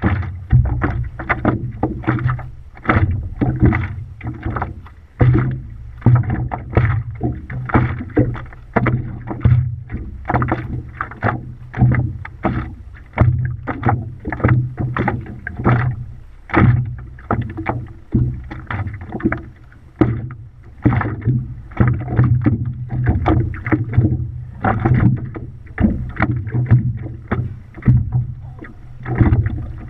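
Stand-up paddleboard paddle strokes splashing in the water, with water slapping against the board, in a steady rhythm of about one stroke a second over a constant low rumble.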